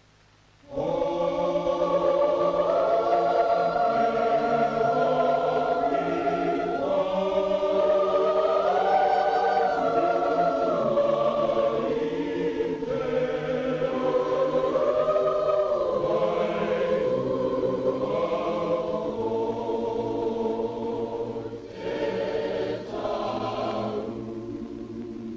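A choir singing in harmony: several voices holding chords that move slowly in pitch. The singing starts about a second in, breaks briefly near the end and then fades.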